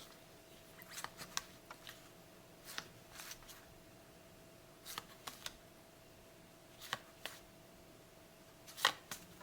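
Trading cards being handled and flicked through one by one: faint, scattered clicks and light rustles of card stock, with a faint steady tone underneath.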